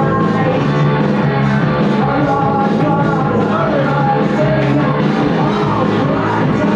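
Loud punk rock music playing: a singer over a steady, driving drum beat.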